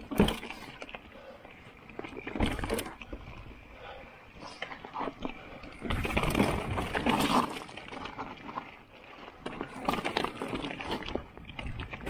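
Mountain bike riding fast down a rocky singletrack: tyres crunching over loose stones, with irregular knocks and clatter from the bike over the rocks, loudest about six to seven and a half seconds in.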